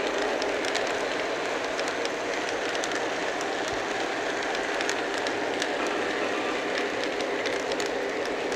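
Model train running along the track: a steady rolling rumble of wheels on rail with faint scattered clicks.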